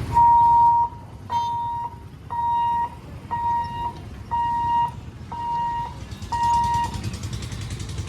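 Electric warning beeper at a railway level crossing sounding seven steady beeps of one pitch, about one a second, then stopping.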